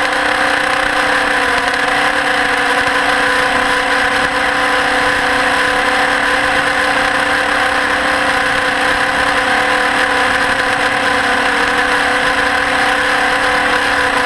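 Electric motor and propeller of an FPV aircraft running at a steady throttle: an even, unchanging hum with a constant pitch.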